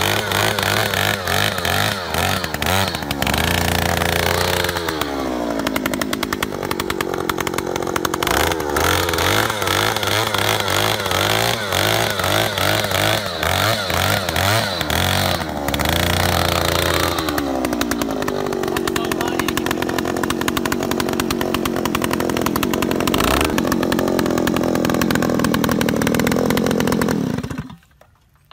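Oshima 2PS earth auger's 54 cc two-stroke engine running at high speed while the 200 mm auger bit drills a hole in soil. Its pitch drops and levels off twice, and the sound cuts off suddenly near the end.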